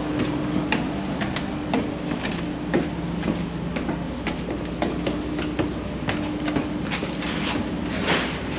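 Steady low hum of a ferry's machinery with a few held tones, broken by frequent irregular metallic clicks and clanks, and a brief louder rush of noise near the end.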